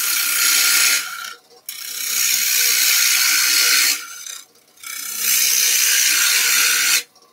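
Turning gouge cutting into a spinning sycamore plate blank on a wood lathe, a loud hiss of shavings coming off in three passes of one to two seconds each, with short pauses between. Hollowing cuts starting near the rim.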